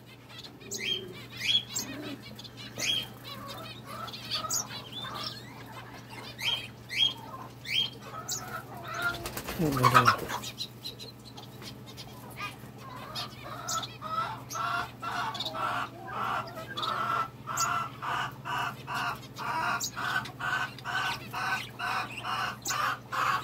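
Aviary birds calling: a scatter of short rising chirps, then from about halfway a steady run of repeated calls, about two a second. A loud falling sweep sounds near the middle, over a low steady hum.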